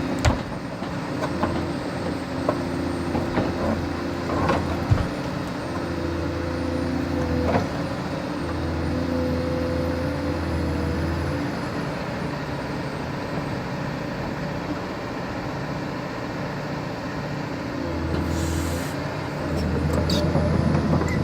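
Caterpillar 320D hydraulic excavator working, its diesel engine running steadily with the low hum swelling and easing as the hydraulics take load. A hydraulic whine from about 7 to 11 seconds in, a few sharp knocks in the first half, and a short hiss about 18 seconds in.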